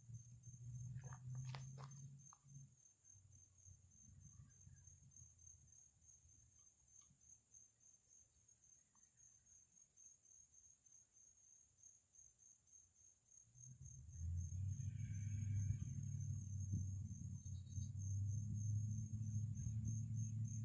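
Insects chirping in a fast, even, high-pitched pulsing trill. A few sharp clicks come about one to two seconds in, and a low rumble comes in about fourteen seconds in and becomes the loudest sound.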